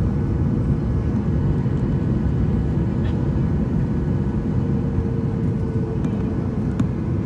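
Jet airliner's turbofan engines and rushing airflow heard from inside the cabin on final approach to landing: a steady, dense low rumble.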